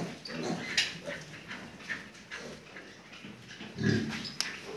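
Pigs grunting in short, low calls, with the loudest grunt about four seconds in.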